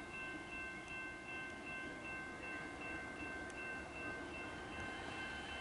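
A steady electronic chiming warning signal of several high tones, which is taken to be a warning for workers on the tracks. An electric suburban train approaching slowly can be heard faintly beneath it.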